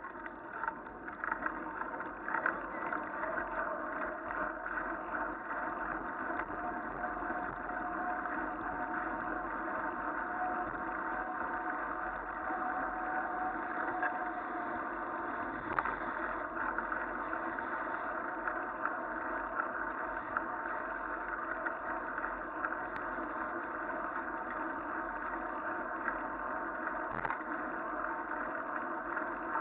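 Bicycle rolling fast on wet asphalt while being pulled by a dog: a steady tyre hiss and rumble mixed with wind on the microphone, with a few faint clicks and rattles.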